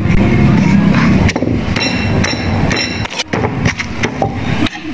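Wooden pestle pounding a spice paste in a stone mortar, a run of repeated dull strokes as the garlic and paste are crushed.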